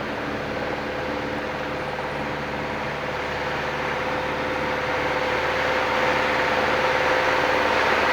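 Cabin noise of a light single-engine plane in flight: the steady drone of its piston engine and propeller, mixed with airflow. It grows gradually louder over the second half.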